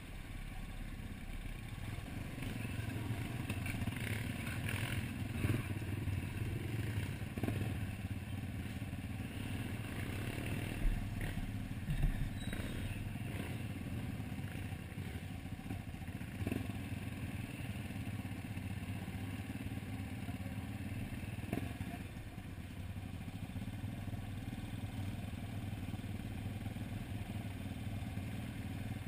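Dirt bike engine running at steady low revs as the bike crawls over a rocky trail, with the bike rattling and knocking over the ground; the sharpest knocks come about 11 and 12 seconds in.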